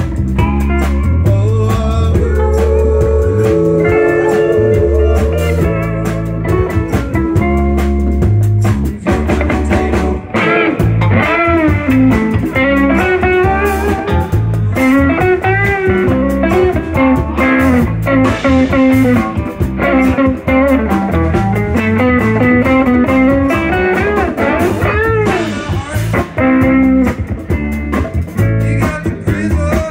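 Live band playing guitar-led blues-rock: electric guitar over a bass line and drum kit. From about a third of the way in, a lead melody bends and wavers in pitch over the band.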